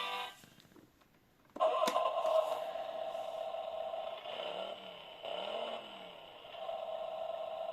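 Electronic sound effect from a children's ride-on toy car's sound module, played through its small speaker: after a brief gap a steady electronic tone starts, with two short rising-and-falling warbles in the middle before the steady tone resumes.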